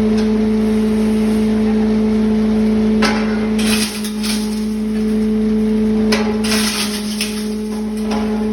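Half-mesh grinding machine running with a steady motor hum, and several short bursts of crushing and rattling as material is fed in and broken down to powder.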